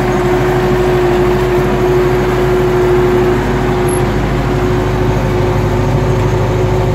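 Tractor engine running steadily while pulling a tillage implement, heard from inside the cab: a constant drone with a steady whine over it.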